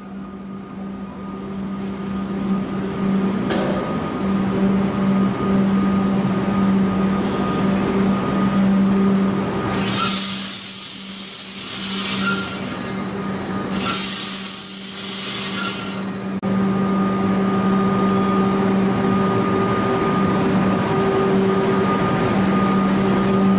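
Comeng electric suburban train running into a station platform and stopping, with a steady low hum from the train that grows louder over the first few seconds. Two loud bursts of air hiss come about ten and fourteen seconds in, each lasting about two seconds.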